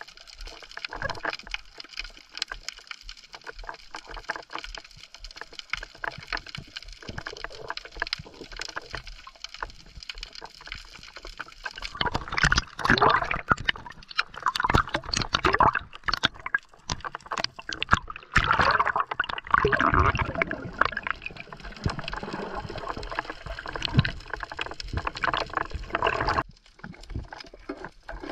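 Water sloshing and gurgling around a spearfisher's action camera. Fine crackling clicks underwater, then louder splashing and rushing water from about twelve seconds in as the diver breaks the surface, cutting off suddenly when he goes back under near the end.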